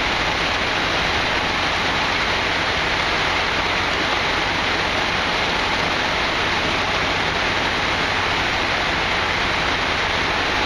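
Rain falling steadily, a loud even hiss with no single drops or other events standing out.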